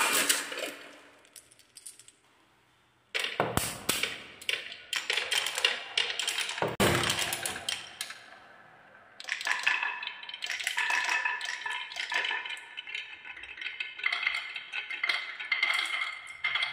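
Wooden balls rolling and clattering down a wooden marble run. The first clatter fades into a moment of near silence, a run of quick clicks and knocks starts about three seconds in, and from about nine seconds the balls keep up a steadier rolling with a ringing tone as they run along wave-shaped wooden tracks.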